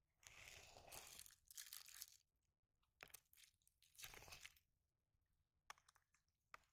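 Hands handling a ball of dark, husk-flecked bait dough on a woven plastic sack: faint crackling rustles and soft squishes in short spells, with a few light clicks in the second half.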